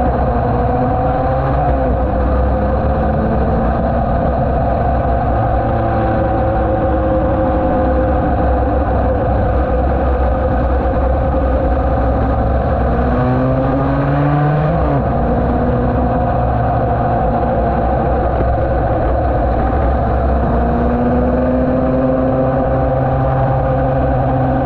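Yamaha TD1B racing motorcycle's two-stroke twin engine running hard at speed. Its pitch rises and falls with the throttle, climbing and then dropping sharply about fifteen seconds in.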